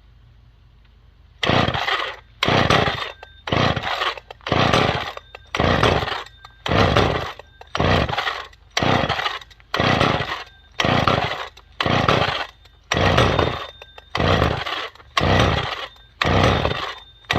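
McCulloch Mac 510 two-stroke chainsaw being pull-started over and over, about one pull a second, starting about a second and a half in: each pull spins the engine over without it catching.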